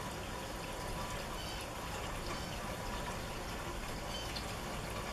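Steady rain falling, with water pouring and trickling.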